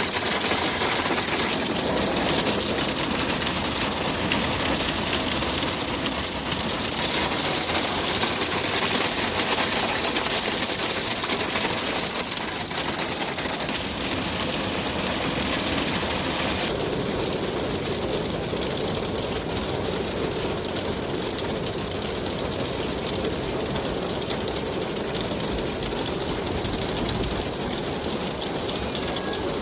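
Hail pelting the metal roof and body of a van, heard from inside as a dense, steady clatter. The sound shifts abruptly about 7 and 17 seconds in.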